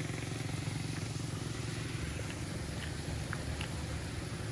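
Car engine running steadily while driving: a low, even hum with a fast pulse. A few faint, short, high chirps sound now and then over it.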